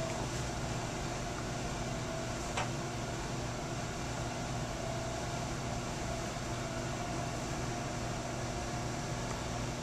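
Steady background hum and hiss of running equipment, with one faint click about two and a half seconds in.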